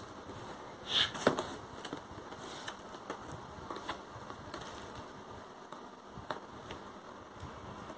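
A cardboard laptop box being handled and opened by hand: scattered faint taps, scrapes and rustles of cardboard, the loudest about a second in.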